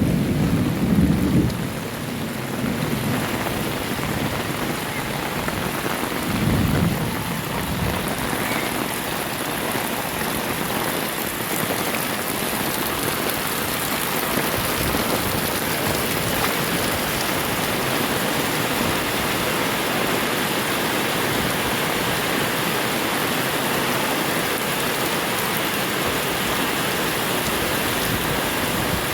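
Heavy rain falling steadily, a dense even hiss. Brief low rumbles sound right at the start and again about six and a half seconds in.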